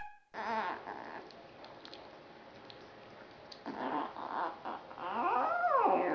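Small puppy on its back whining and grumbling while its belly is rubbed: three short bouts of sliding calls, the longest near the end rising then falling in pitch.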